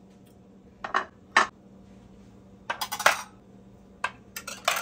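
Ceramic baking dishes knocking and clinking against each other as they are stacked into a kitchen drawer. Two knocks come about a second in, a quick run of clinks around three seconds, and a few more near the end.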